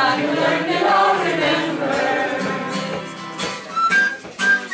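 Voices singing a sustained, slowly bending phrase without accompaniment, fading after about two seconds. Near the end a whistle starts playing short, steady high notes.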